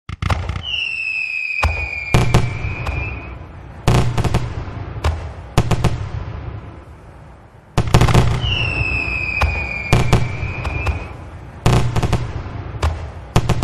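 Fireworks: a high whistle that falls slightly in pitch over about two and a half seconds, followed by several sharp bangs and booms. The same whistle-and-bang sequence repeats about eight seconds in.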